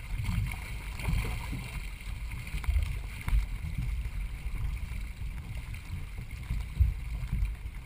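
Racing canoe under way, paddled hard, with water rushing past the hull. A heavy low rumble of wind and water on the microphone runs throughout, with a few irregular thumps.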